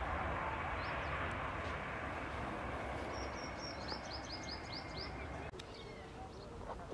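Distant jet airliner engine noise, a broad steady rush that slowly fades and then drops away suddenly about five and a half seconds in. Small birds chirp over it, with a quick run of about eight falling chirps around three to four seconds in, and scattered bird calls in the quieter background that follows.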